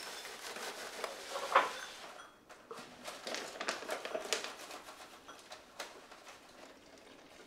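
Dry granola rattling into a ceramic bowl as it is poured from a cardboard box. After a short pause, a plastic bag of protein powder crinkles as it is opened and scooped from, then the sound fades.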